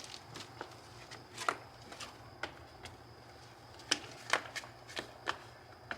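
Faint scattered light clicks and taps, about ten at irregular spacing, over a steady low hum and a thin high whine.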